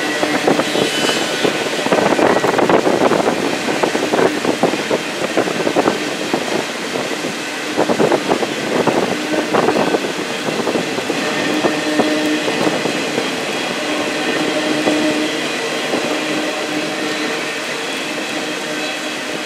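Train cars rolling past, their wheels clicking and clattering over the rails, the clatter busiest in the first half and then settling into a steadier rumble with a few held tones.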